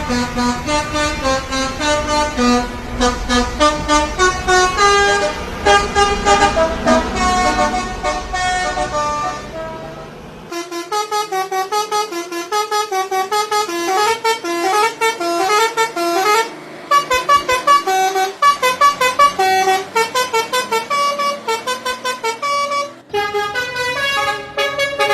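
Indonesian telolet bus horn, a multi-tone air horn, playing quick melodic runs of short notes over and over. A low rumble under the horn cuts off abruptly about ten seconds in, and the horn tune carries on.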